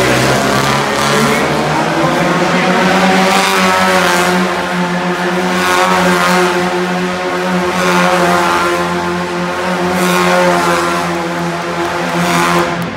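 Mini monster truck engine running hard as the truck spins donuts in dirt, its pitch held fairly steady with small rises and falls.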